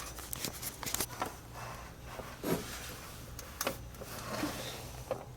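Faint rustling and a few soft knocks of movement over a low steady hum.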